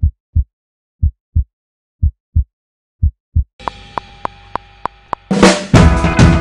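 Edited-in music. It opens with pairs of deep thumps about once a second, like a heartbeat. About three and a half seconds in, a pitched layer with evenly spaced clicks joins, and a full drum-kit beat comes in loud after about five seconds.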